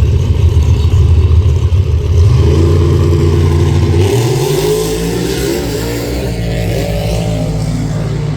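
A motor vehicle engine revving up with a rising pitch over a steady low rumble, the rumble plausibly from a freight train's cars rolling past.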